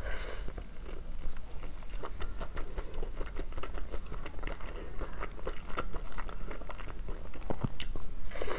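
Close-miked biting and chewing of soft, glazed meat, with many short wet mouth clicks and smacks throughout.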